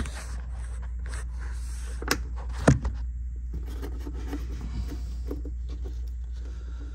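Hands working at a golf cart's air filter housing and intake hose: faint rubbing and a few light clicks, with one sharper knock almost three seconds in, over a steady low hum.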